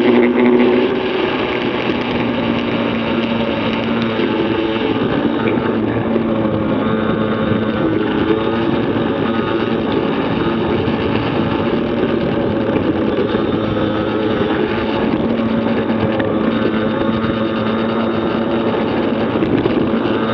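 Yamaha PW50 minibike's 49cc two-stroke single-cylinder engine running hard under way, its pitch shifting up and down with the throttle through the corners, with wind rush on a handlebar-mounted camera.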